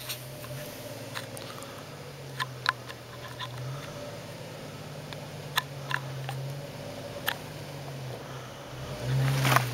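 Chevrolet Trailblazer engine running at low crawling speed, a steady low hum that rises and falls a little with the throttle, while sharp clicks and knocks of stones sound under the tyres on a rocky trail. Just after nine seconds the engine pulls harder for about half a second with a louder rush of noise.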